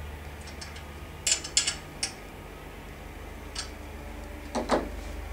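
A wrench working the clamp bolts of a manual wheelchair's wheel lock: a few sharp metallic clicks as the bolts are tightened, with a duller knock near the end.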